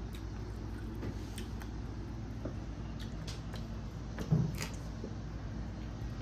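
Steady low background hum with faint scattered clicks and one louder knock about four seconds in.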